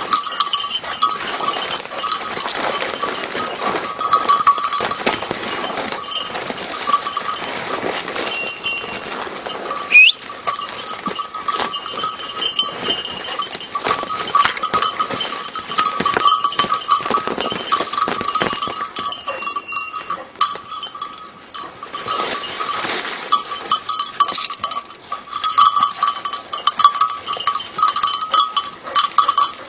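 A hunting dog's bell ringing unevenly and continuously as the dog works through dense bramble cover; the ringing shows the dog is still moving. Brush rustles and snaps close by, and a short loud rising whistle sounds about ten seconds in.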